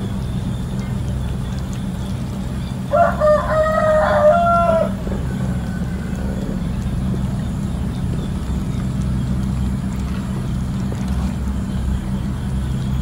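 A rooster crows once, about three seconds in, for roughly two seconds, over a steady low hum.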